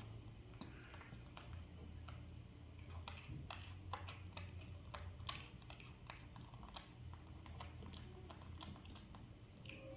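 Faint, irregular small clicks and taps as a young macaque eats orange slices, chewing and picking the fruit off a plate.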